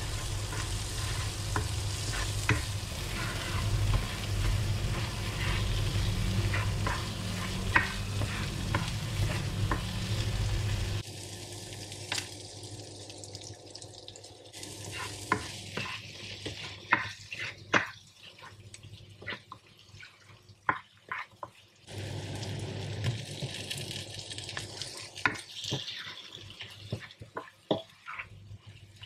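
Spice paste sizzling in oil in a nonstick wok as a plastic spatula stirs and scrapes through it, with frequent sharp taps of the spatula against the pan. The sizzle, with a low hum under it, drops away abruptly about a third of the way in and comes back for a few seconds later on.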